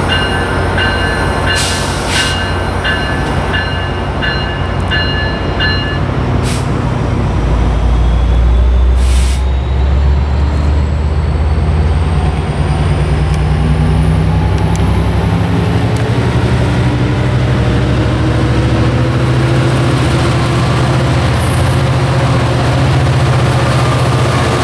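Grade-crossing bell ringing about twice a second, then a passenger train's diesel locomotive throttling up from about seven seconds in, its engine drone loud and rising in pitch as the train departs.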